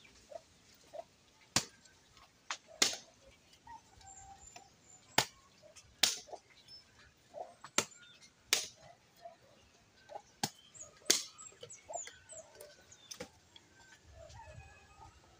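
Machete chopping dry branches into firewood lengths: about ten sharp chops, irregularly spaced a second or two apart. Birds chirp faintly between the strikes.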